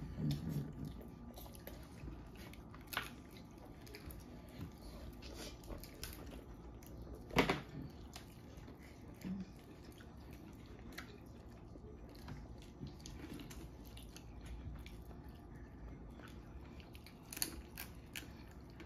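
Quiet eating at the table: chewing and the small cracks and crunches of boiled crawfish shells being peeled by hand, with a few scattered sharp clicks. The loudest comes about seven and a half seconds in.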